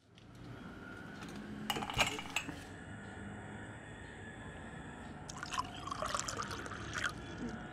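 Liquid sounds over a steady background hiss: a few sharp clinks about two seconds in, then a stretch of splashing and pouring between about five and seven seconds.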